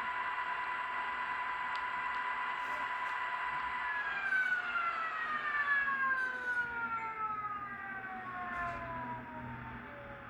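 Simulated gas-turbine sound from the ESU sound decoder in an N-scale Amtrak RTL Turboliner power car, running the engine shutdown sequence. It holds a steady high whine, then about four seconds in the turbines spool down in a long falling whine.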